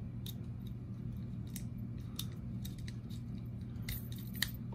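Small bit screwdriver turning a screw into a slip-joint pocketknife's handle: a few faint metal ticks and clicks over a steady low hum.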